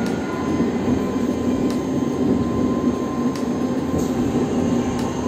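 Locomotive running along the track through a tunnel, heard from inside the cab: a steady rumble and hum with a faint whine, and a few sharp clicks spaced unevenly.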